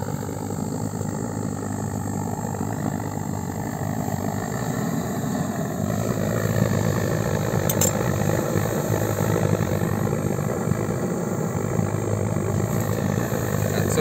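Steady mechanical running noise, a low, even rumble that goes on without a break, its pitch shifting slightly about six seconds in.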